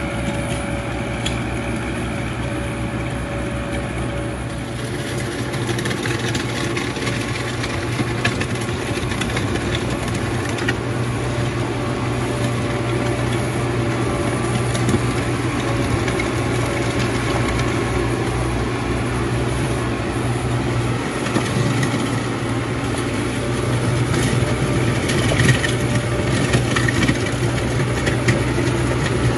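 New Holland Workmaster 75 tractor's diesel engine running steadily under load while its rear box blade drags across the driveway, scraping and crunching gravel.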